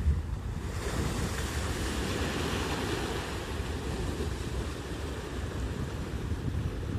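Sea waves washing ashore. One wave's hiss swells about a second in and slowly fades over several seconds, over a steady low rumble of wind on the microphone.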